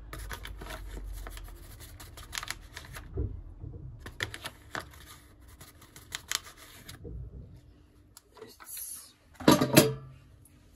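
Crinkling of a cocoa powder packet as it is tipped and shaken over a plastic bowl, coming in clusters of crackles, with a louder rustle near the end as the packet is taken away.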